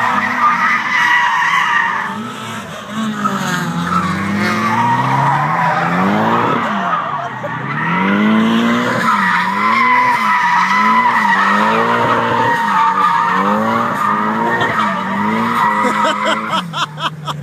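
Cars drifting: tyres squealing without a break while the engines rev up and down over and over as the throttle is worked through the slides.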